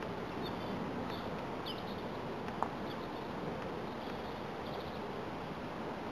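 Small birds chirping now and then over steady outdoor background noise, with a single sharp knock about two and a half seconds in.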